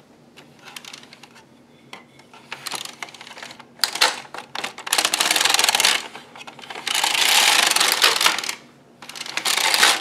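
Ultimate Sweater Machine carriage pushed back and forth across the plastic needle bed, knitting rows: a rattling run of clicks on each pass, about three passes of a second or so each, starting about four seconds in after a few faint clicks.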